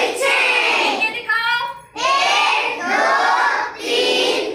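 Children chanting a Hindi counting rhyme together, in short sung phrases with brief breaks between them.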